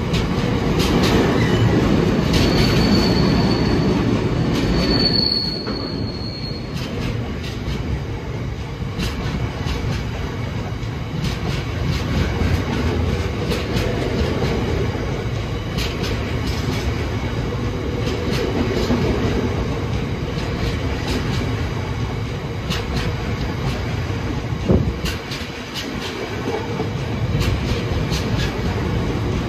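Freight train passing, its wheels rumbling over the rails with a steady run of clicks. A high wheel squeal sounds from about two to seven seconds in, and there is one sharp knock a few seconds before the end.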